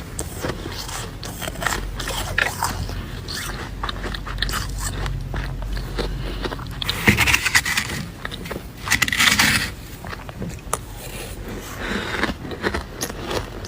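Flaky freezer frost being bitten and chewed: crisp crunching and crackling with scraping sounds, loudest in two stretches about seven and nine seconds in.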